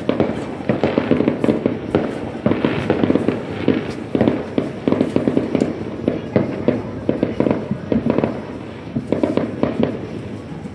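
New Year's fireworks going off: a dense, rapid run of bangs and crackling pops, several a second, thinning out a little near the end.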